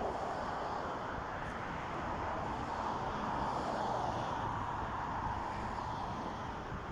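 Steady rush of road traffic, with wind buffeting the phone's microphone as a low, uneven rumble.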